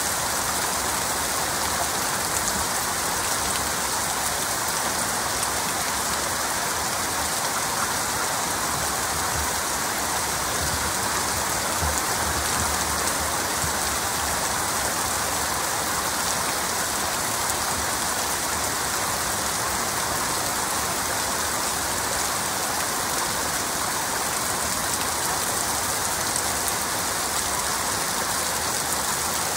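Heavy rain falling steadily, a dense even hiss of drops with no breaks or thunderclaps.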